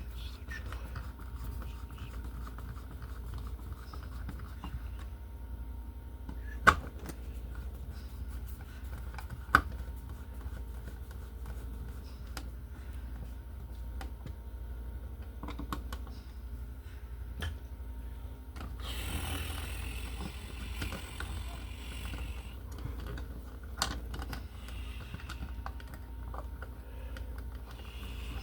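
An old-work electrical box being pushed into a hole in a wall and worked into place: scattered light clicks and taps, two sharp knocks about seven and ten seconds in, and a scraping stretch a little after halfway, over a steady low hum.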